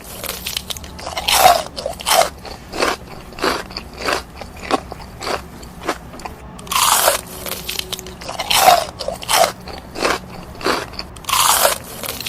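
A person chewing crispy-coated chicken nuggets with the mouth close to the microphone: a steady run of crunching chews, about one every two-thirds of a second.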